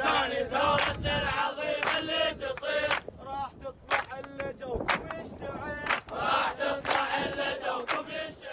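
A man leading a chant with a crowd of protesters joining in, with sharp hits now and then.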